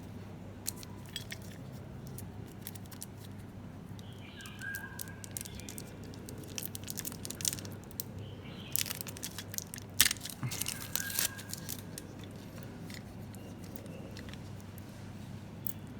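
Hands handling and fitting together parts of a manual soldering gun: scattered plastic clicks, rattles and crinkling, busiest in the middle, with one sharp click about ten seconds in.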